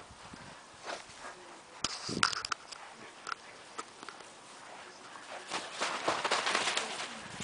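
Deerhound puppies scampering and tussling on grass: scattered scuffles, soft thumps and clicks, with a longer stretch of rustling a little past the middle.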